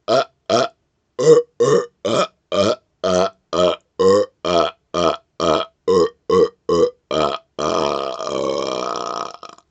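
A man belching deliberately in a rapid-fire string: about sixteen short burps at roughly two a second, then one long drawn-out burp lasting about two seconds near the end.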